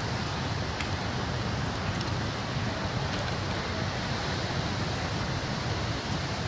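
Steady rushing noise of wind and ocean surf on an open beach, even throughout with no separate sounds standing out.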